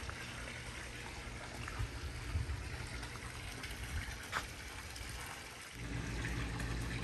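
Water trickling and splashing in a backyard swimming pool, with a steady low machine hum under it that grows louder near the end.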